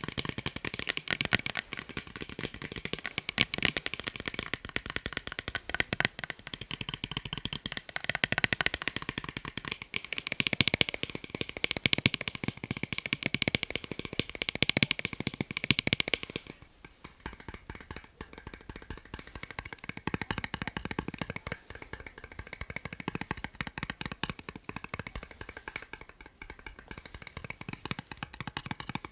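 Fast tapping on a pair of eyeglasses: a dense stream of rapid clicks. About sixteen seconds in, the tapping becomes noticeably quieter and carries on more softly.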